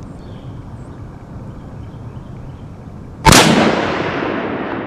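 A single loud rifle shot about three seconds in, followed by a long rolling echo that fades slowly.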